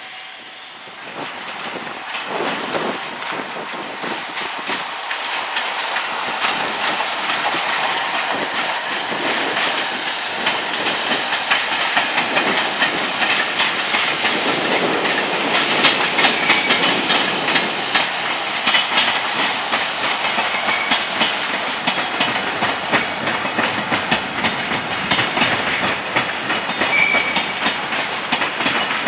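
Freight train running past, its wagons' wheels clattering steadily over the rail joints. The noise builds over the first couple of seconds as the train comes up, then stays loud.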